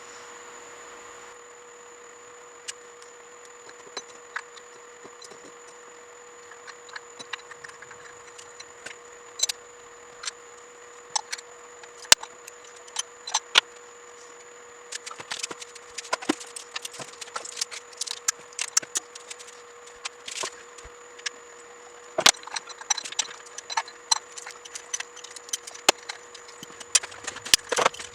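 Scattered clicks, clinks and light rattles of tools and parts being handled, sparse at first and busier about halfway through, over a faint steady high hum.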